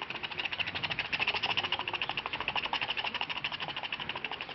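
Beatboxed helicopter effect: the tongue tapping rapidly behind closed teeth ('tucu tucu tucu'), an even train of about ten clicks a second imitating rotor blades. It swells about a second in, then slowly fades, as if the helicopter comes near and goes away.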